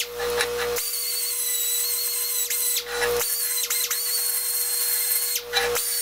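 Small die grinder with a ball-shaped abrasive tip polishing a rough cast-iron lathe steady rest. It gives a steady high whine that sags in pitch or breaks off briefly several times as it is worked against the casting.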